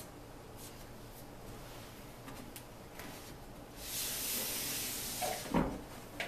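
A large written sheet being slid and handled against a whiteboard as it is swapped for the next one: a papery rushing rub for about a second and a half, then a thump near the end.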